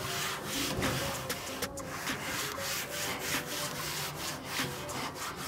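Damp rag rubbing back and forth over the steel cooking plate of a Blackstone propane griddle in quick, repeated strokes. The plate is being wiped down with warm soapy water to clean off factory residue before seasoning.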